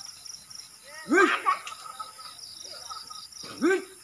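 A steady insect chorus shrilling high and pulsing, broken by two short, louder calls that each rise and fall in pitch, about a second in and again near the end.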